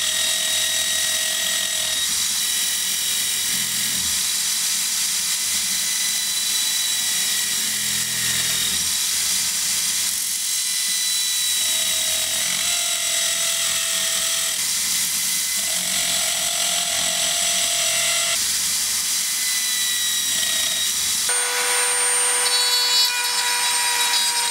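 Corded electric drill clamped in a vise, spinning a sanding disc with a steady whine while a small wooden piece is pressed against it and sanded. About 21 seconds in, it gives way to a handheld rotary tool running.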